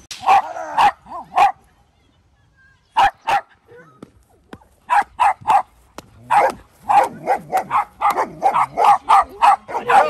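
A dog barking in short sharp barks: a few at the start, two about three seconds in, then a quick run of barks from about five seconds on, close to three a second.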